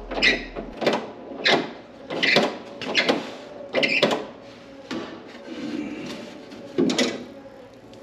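Door lock parts being worked by hand: a string of irregular clicks, knocks and rattles, about one every half second to second, with a louder knock near the end.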